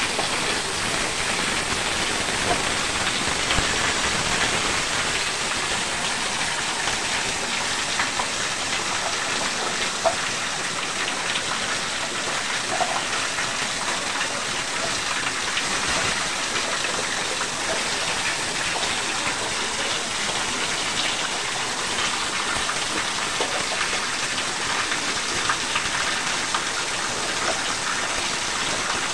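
Water pouring steadily from a rooftop pipe outlet and splashing down a brick wall, an even rain-like spatter with a few small drips ticking through it.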